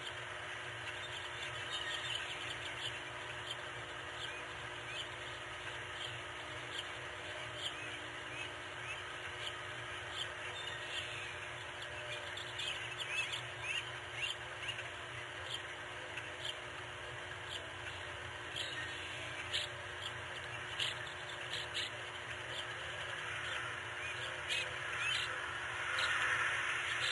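Many short, high bird chirps and calls scattered over a steady background hiss, thickest around the middle.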